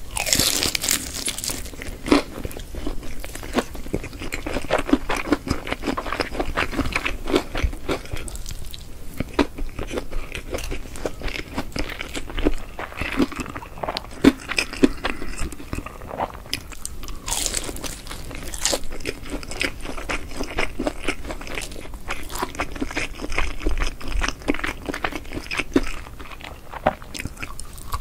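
Close-miked eating of fried chicken coated in corn cheese sauce: a steady stream of crunching bites and chewing.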